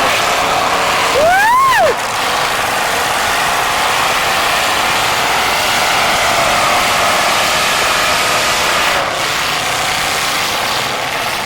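Demolition derby cars' engines running and revving. One loud rev rises and falls about a second and a half in, over a steady wash of engine noise.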